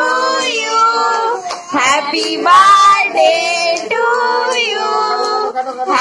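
A child's voice and a woman's voice singing a melody.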